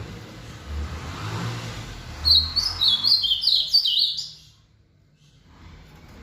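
Ultramarine grosbeak (azulão) singing one loud, quick phrase of whistled notes lasting about two seconds, starting about two seconds in, over a low background rumble.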